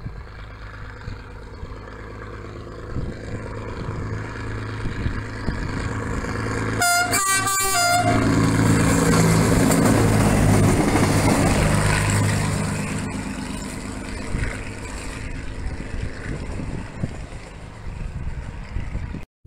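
Vintage SNCF X 3800 'Picasso' diesel railcar approaching and passing, its diesel engine running with a steady low hum. About seven seconds in it sounds its horn in a quick series of short toots, then passes at its loudest and fades away.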